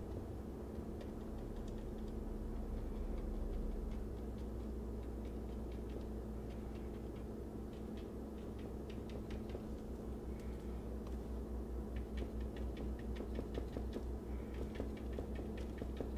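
Paintbrush tapping paint onto a canvas: a run of light, dry ticks, denser in the last few seconds, over a steady low hum.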